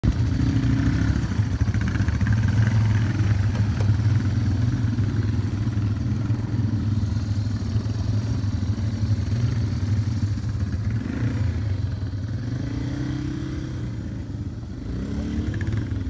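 Motorcycle engine running steadily, revving up and down several times as the bike is worked through deep mud ruts.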